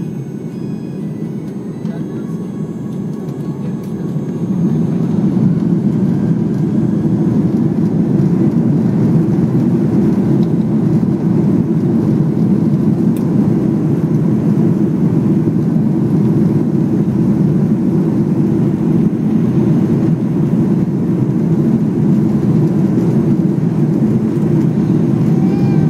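Jet airliner cabin noise heard from a window seat over the wing: the engines grow louder about four seconds in as thrust comes up, then hold a steady heavy rumble while the plane moves along the runway for takeoff.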